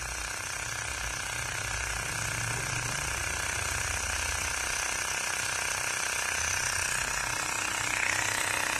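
Xiaomi Mi portable tyre inflator's small compressor running steadily, growing slightly louder, as it pumps a car tyre up to about 30 PSI under the car's load.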